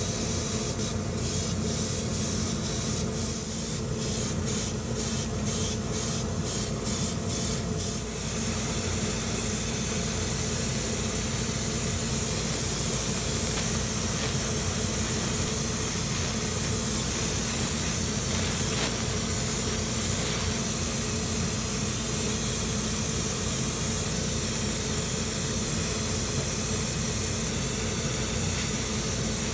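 Gravity-feed airbrush hissing as paint is sprayed, first in short repeated bursts, about one and a half a second, then as one continuous spray from about eight seconds in. A steady low hum runs underneath.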